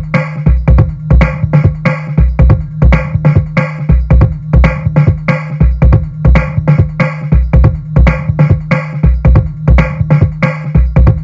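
Background electronic music with a steady drum-machine beat and a deep, thumping bass.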